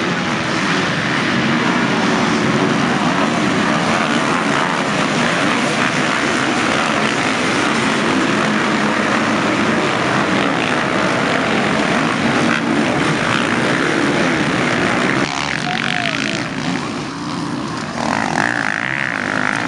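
Motocross bikes racing in a pack: many engines at high revs blend into one dense drone. About fifteen seconds in it thins to a few bikes, with single engines revving up and down.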